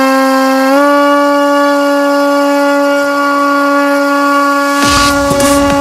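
Brushless electric motor and propeller of an FPV model aircraft running at a steady speed: a steady whine that steps up slightly in pitch about a second in. Rushing wind noise joins near the end.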